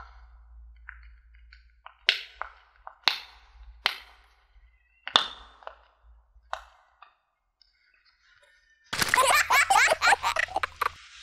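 Silicone pop-it fidget toy bubbles being pressed through with a finger, one sharp pop at a time, about one a second. Near the end a louder, busy sound takes over for about two seconds.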